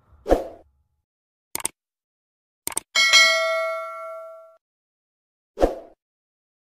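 Subscribe-button animation sound effects: a pop, a click and a quick double click, then a bright notification-bell ding with several tones ringing out for about a second and a half, and another pop near the end.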